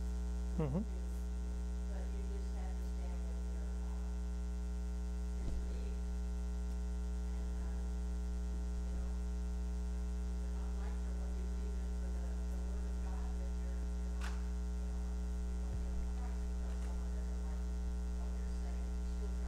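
Steady electrical mains hum, a constant low drone with overtones, on the sound system's recording. Faint, indistinct voices sit underneath it, with a brief gliding vocal sound about a second in and a few small clicks.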